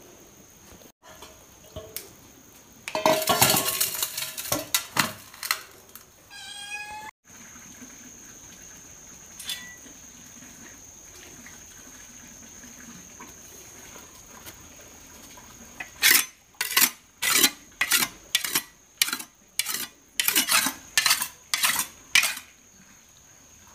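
A large knife being sharpened on a rock: about a dozen even scraping strokes of the blade near the end, roughly one every half second. A few seconds in there is a loud clatter and rustle.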